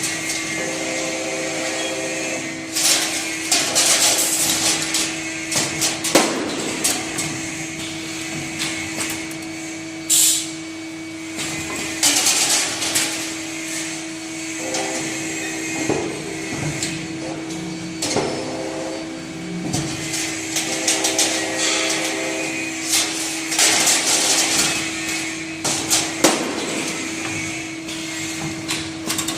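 Automatic wire hanger bending and welding machine running: a steady hum under repeated clanks and knocks, with short bursts of hiss every few seconds as it works through its cycles.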